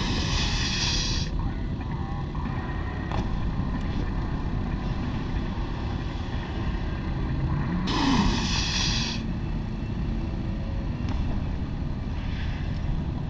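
Steady wind rumble on the camera microphone, with about one-second bursts of hiss near the start and about eight seconds in, and a fainter one near the end, as snowboarders land on and slide across the inflated landing airbag.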